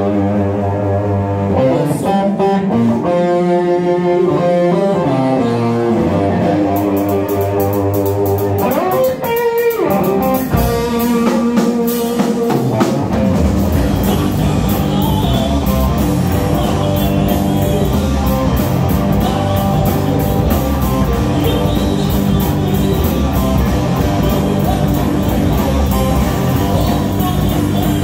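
Live blues-rock band with electric guitar and harmonica (blues harp). Held notes ring over a light backing at first, a falling slide comes about nine seconds in, and bass guitar and drums come in fully about thirteen seconds in.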